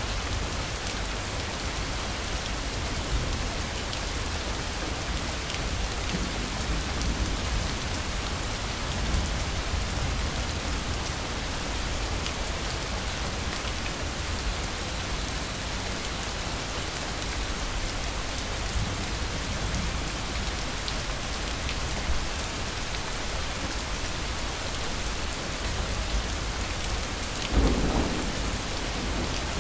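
Steady rain falling, with a low rumble of thunder underneath and one louder, sharper thunderclap near the end.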